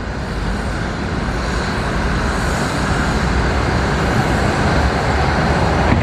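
Steady rushing roar of vehicle noise, with no distinct knocks or rhythm, swelling slightly in the middle.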